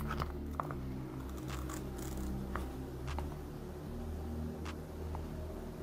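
Low steady hum with a few faint, short plastic clicks from an office chair's plastic headrest being worked onto the guides on its backrest.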